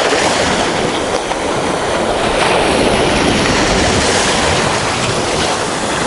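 Small waves of the calm Sea of Azov washing onto a sandy shore: a steady hiss of surf.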